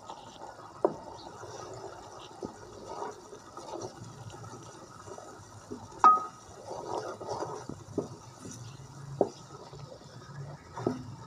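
Wooden spoon stirring a thick tomato masala in a metal pot: wet stirring, with the spoon knocking against the pot several times. The loudest knock, about six seconds in, rings briefly.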